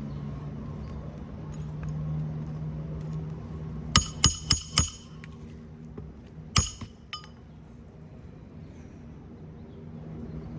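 Hammer striking a metal shingle-repair nailing tool to drive roofing nails into asphalt shingles: four quick, ringing metallic strikes about four seconds in, then a single strike about two seconds later followed by two lighter taps.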